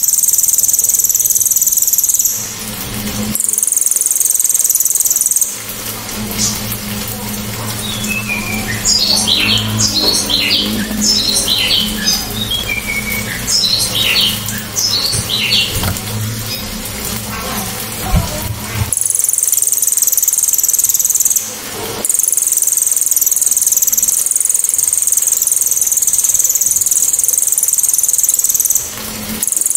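Caged cililin songbird giving its 'tembakan' call: a loud, sharp, shrill high note held for several seconds at a time, broken by short gaps. Through the middle stretch the note gives way to softer, quick, varied chirps over a low hum.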